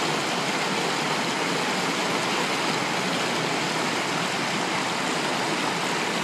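Fast-flowing creek rushing over rocks in whitewater rapids: a steady, even rush of water.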